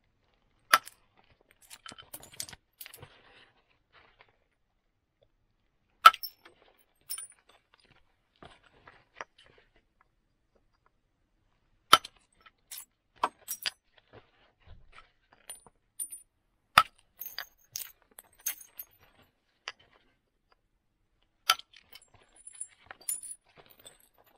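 Flint knapping by indirect percussion: a wooden billet strikes a moose-antler punch set on the flint axe blank, making five sharp cracks about five seconds apart. Each crack is followed by a scatter of small clicks and clinks as flakes come away and the tools shift.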